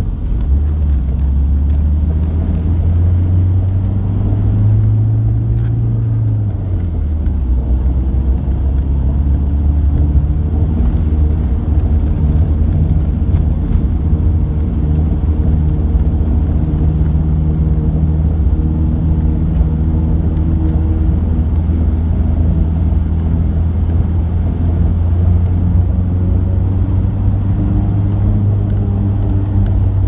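Engine and road noise heard from inside a moving vehicle's cabin: a steady low hum whose pitch climbs for a few seconds and then drops sharply about seven seconds in, as at a gear change.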